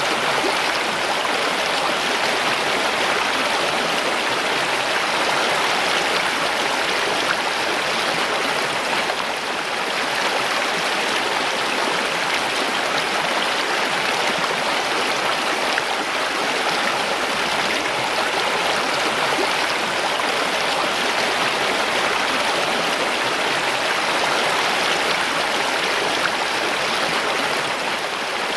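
Mountain stream running steadily over rocks, a continuous rushing and babbling of water.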